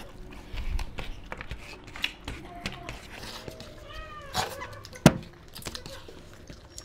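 Close-up eating sounds of two people eating chicken curry and rice by hand: wet chewing and mouth clicks, with fingers working food on steel plates. A short pitched throat sound comes about four seconds in, while one of them drinks from a glass. A single loud sharp click follows about a second later.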